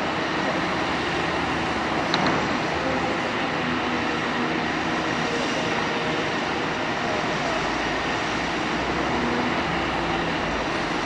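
Diesel engine of a Cat 325D tracked excavator working steadily while digging, mixed with the running of other heavy machinery, with a brief clank about two seconds in.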